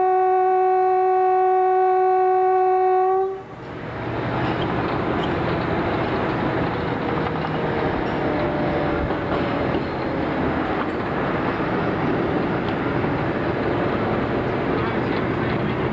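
Narrow-gauge train's locomotive sounding a long steady single-note blast, which cuts off about three seconds in. The steady noise of the moving train follows, heard from a carriage window.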